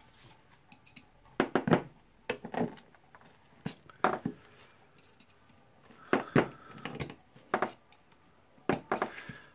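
Irregular clicks and light metal clinks as the greasy steel parts of a rotary hammer's hammer mechanism are handled and a small screwdriver pries at the spring ring on the hammer tube. One clink about six seconds in rings briefly.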